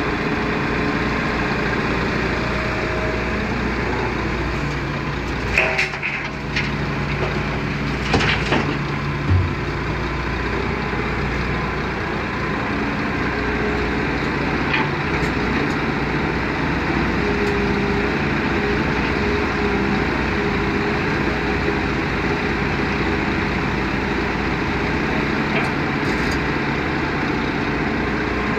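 Hitachi Zaxis 210 excavator's diesel engine running steadily under hydraulic load while the bucket works dry, stony soil. Clunks and rattles of earth and stones come around 6 and 8 seconds in, with a few lighter knocks later.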